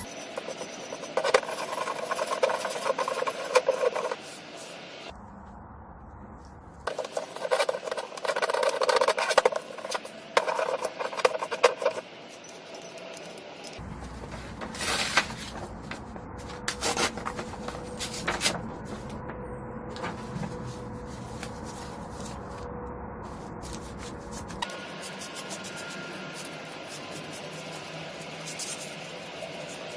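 Hand rubbing and scraping, like sanding or filing, in several short clips: quick runs of strokes in the first half, then quieter scraping with scattered clicks.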